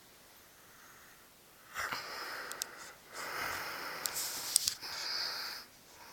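A sleeping person snoring: after a quiet start, three breathy snores about a second long each, the first beginning about two seconds in, with a few sharp clicks among them.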